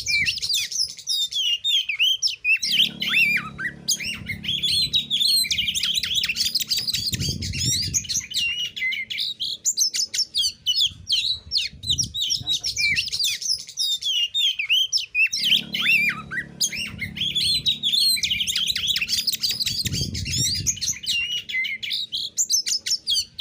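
Oriental magpie-robin (kacer) singing without pause: a fast, dense run of chattering and high whistled notes, mixed with mimicked calls of other birds. A low hum sits underneath twice, for about two seconds each time.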